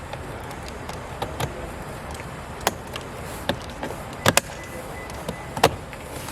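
Sharp plastic clicks and knocks from the BMW F10 door trim panel being handled and pressed back into place, about eight in all, the loudest a quick double knock past the middle and a single one near the end, over a steady background hum.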